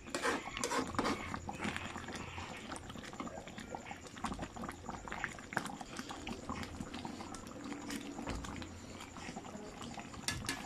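Pork broth bubbling and sputtering in a wide metal pan on a gas stove, with a ladle scraping and clinking against the pan in the first second.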